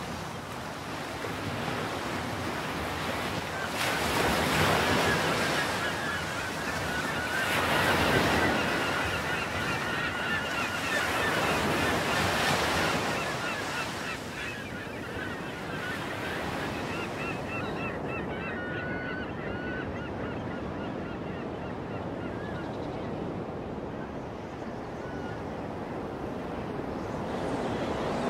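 Sea waves washing in against a rocky shore, swelling loudest three times in the first half, with faint short high bird calls over the wash.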